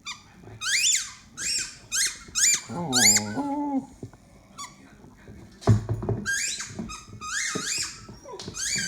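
A dog chewing a squeaky chew toy: quick runs of high squeaks, each rising then falling in pitch, in two bouts. There is a lower, longer squeal about three seconds in and a thump a little before six seconds.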